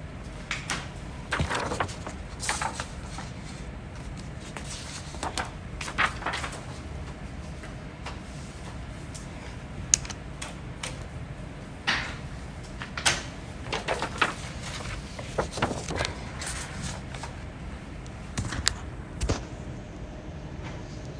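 A person hiccuping: a series of short, sharp hiccups at uneven intervals, roughly a second or more apart, over a steady low background noise.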